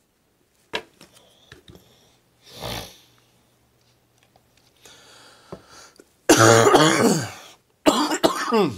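A man coughs loudly twice in the last few seconds. Before that there are only faint clicks and soft rustles of trading cards being handled.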